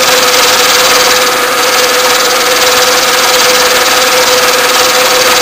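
Vertical milling machine end mill cutting an aluminum casting on the finishing pass of a half-lap joint: a steady cutting noise with a constant tone running through it.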